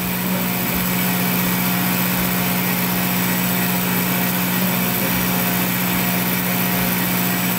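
A CNC mill's spindle runs steadily as a diamond-cut router bit mills a carbon fiber plate flooded with lubricant. It makes a constant hum under an even hiss.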